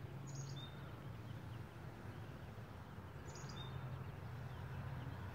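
Faint outdoor background with a low steady hum, and two short high chirps from a small bird, one near the start and one about three seconds in.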